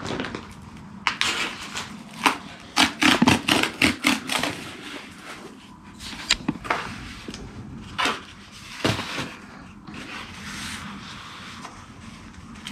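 Cardboard parcel packaging being handled and torn open: a run of short scrapes and rips of cardboard, thickest about three to four seconds in, then scattered handling noises.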